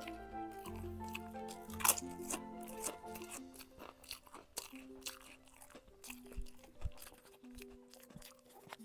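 Close-miked chewing and biting of a crunchy fried snack, with irregular crunches, the loudest about two seconds in, over background music of held melodic notes.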